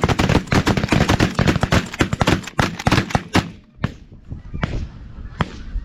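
A rapid volley of shotgun fire from several hunters shooting at a flock of snow geese: many overlapping shots over about three and a half seconds, thinning to a few single shots near the end.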